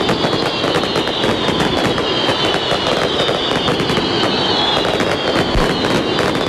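Fireworks crackling and popping without pause, many sharp reports a second over a dense, steady din.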